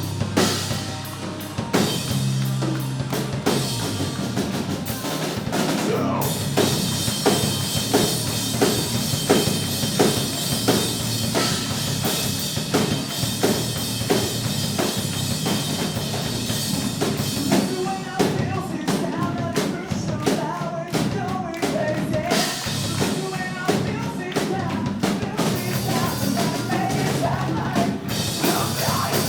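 Live heavy rock band playing an instrumental passage, with the drum kit driving it in a steady beat of bass drum and snare hits under the band's sustained sound.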